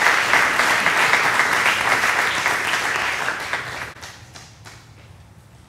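Audience applauding: dense clapping that thins to a few scattered claps and dies away about four seconds in.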